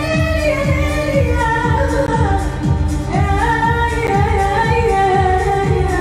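A woman singing an Arabic vocal improvisation in gliding, ornamented lines, accompanied by electric violin and keyboard over a steady beat.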